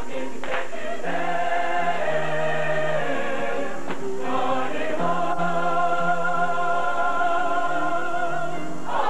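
Mixed-voice show choir singing, ending on a long held chord with vibrato from about five seconds in that cuts off near the end: the close of the number.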